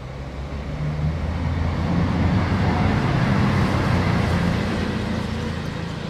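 A train passing on the railway line beside the track: a low rumble that swells over the first couple of seconds, holds, and slowly fades.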